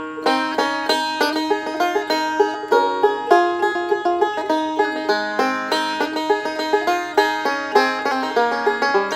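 Five-string resonator banjo picked with finger picks in a fast bluegrass-style roll, an instrumental break on a gospel hymn tune, many quick plucked notes a second.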